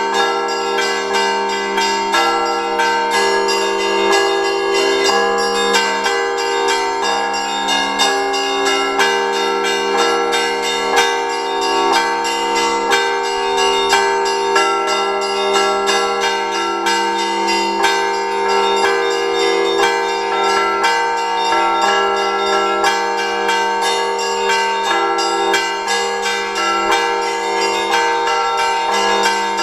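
Russian Orthodox church bells rung by hand from the belfry in a continuous peal: quick strokes of the small bells over the sustained ring of the larger ones. This is the Sunday peal after the Liturgy.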